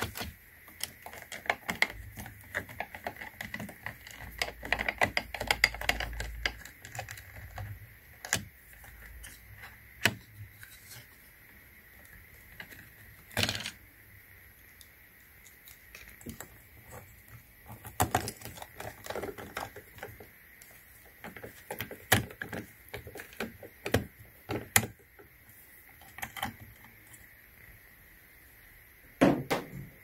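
Small clicks and taps as a hand tool turns out the two turn-signal screws and hands handle the plastic housing of a VW Rabbit side mirror. A quick run of clicks comes a few seconds in, then sharper single clicks spaced out through the rest.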